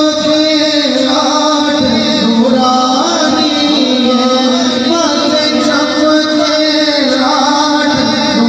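Man singing a naat, the Urdu devotional praise poem, into a microphone without pause, holding long notes and gliding between them.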